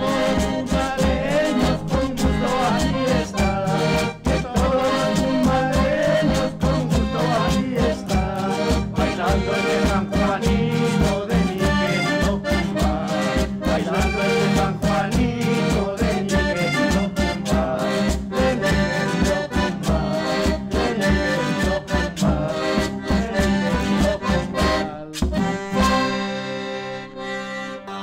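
Traditional Andean band music with a steady beat under held melody notes. The beat stops about 25 seconds in, and a held chord fades out.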